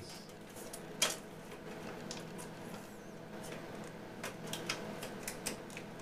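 Case parts of an HP MediaSmart Server EX470 being handled and pressed closed by hand: scattered light clicks and taps, the sharpest about a second in and several more near the end, over a faint steady hum.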